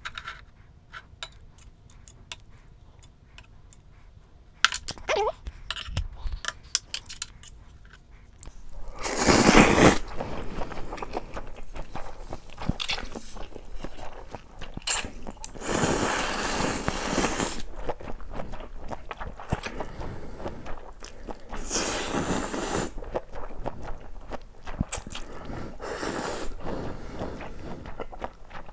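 Cold naengmyeon noodles being slurped in several long, loud slurps from a bowl held at the mouth, with chewing and crunching between the slurps. Near the start there are light clicks as the noodles and chopsticks are handled.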